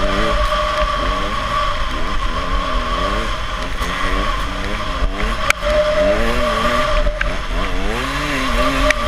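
Engine of a snow vehicle being ridden along a trail, its pitch rising and falling with the throttle over a steady high whine from the drive. There is a brief knock about five and a half seconds in.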